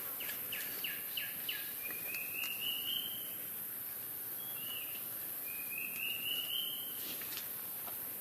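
A bird calling: a quick run of about five short falling notes, then two drawn-out rising whistles, over a steady high hiss.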